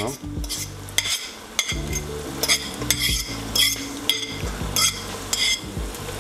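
Fork scraping and clinking against a plate, about one stroke every half second, as mashed roasted eggplant is pushed off into a pot of rice and onions frying in olive oil, which sizzle lightly.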